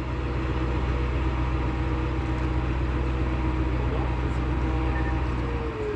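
Engine of heavy construction equipment running steadily at a constant pace, with a slight drop in pitch near the end.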